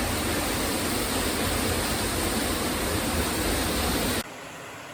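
Steady rushing roar of a waterfall, close by, which drops abruptly to a quieter, more distant rush of falling water about four seconds in.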